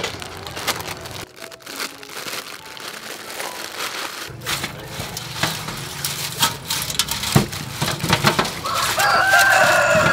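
Plastic packet of dried glass noodles crinkling as it is handled, then hands squeezing and stirring the noodles in a metal bowl of water, with rustles and small splashes. Near the end a short pitched call, the loudest sound, rings out over it.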